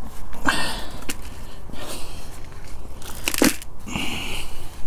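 Gloved hands scooping and pushing compost mix from a flexible plastic tub into a black plastic bucket: irregular rustling and scraping, with a sharper knock a little after three seconds in.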